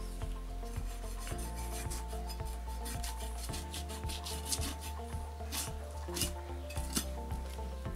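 Background music with a steady beat and held chords, over rasping scrapes of a knife cutting along a raw lamb carcass.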